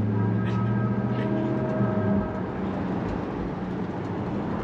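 Engine running steadily: a low hum with a few steady higher tones that drop away about two seconds in.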